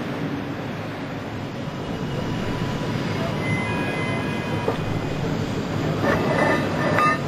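Steady low hum and rumble of a large assembly hall. Over it come a few sharp metal clinks in the second half as a crane hook's lifting attachment is handled and fitted to the wing's lifting point.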